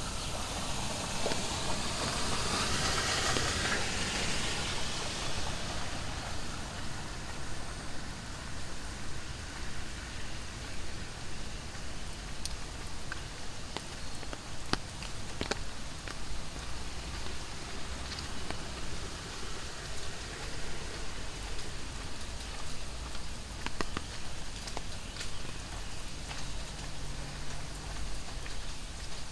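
Heavy tropical rain falling steadily, a hiss of rain on hard surfaces with scattered sharp drip ticks. A louder wash of hiss in the first few seconds fades away.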